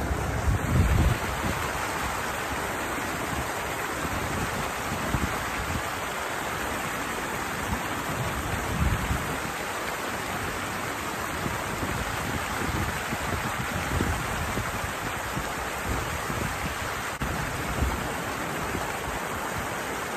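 Steady rush of water pouring over a small weir into a stream, with a few low thumps.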